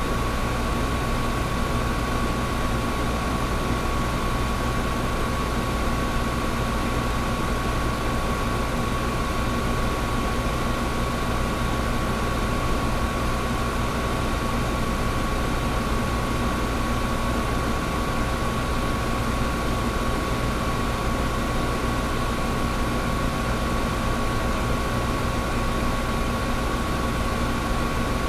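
Old window air conditioner running steadily: fan air rushing over a low compressor hum, with a thin steady whine on top.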